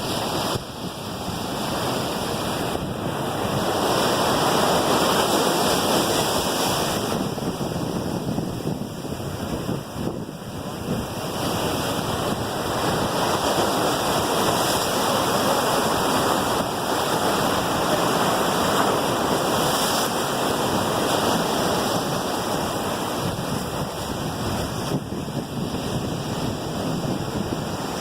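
Ocean surf rushing and breaking below, a loud continuous wash that swells and eases, with wind on the microphone.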